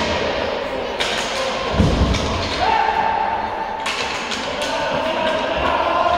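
Game sounds echoing in a sports hall: a dull thud about two seconds in and another near the end, sharp knocks, and a held mid-pitched tone, over a steady background din.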